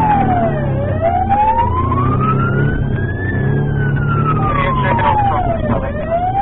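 Police siren on a slow wail: the pitch falls to its lowest about a second in, climbs for about two and a half seconds, falls again and is rising at the end. It sounds over a steady vehicle rumble.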